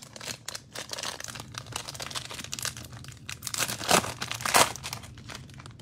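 Foil trading card pack crinkling in the hands and being torn open: a dense run of crackles, with two louder rips about four seconds in.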